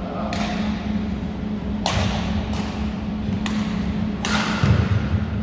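Badminton rackets striking a shuttlecock in a rally: four sharp cracks, the first three about a second and a half apart and the last coming sooner, each with a short echo off the gym hall. A steady low hum runs underneath.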